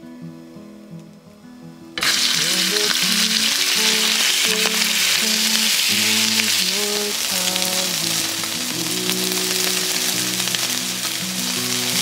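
Raw chicken pieces frying in hot oil in a nonstick frying pan: a loud, steady sizzle that starts suddenly about two seconds in as the meat goes into the pan, while the pieces are turned with chopsticks.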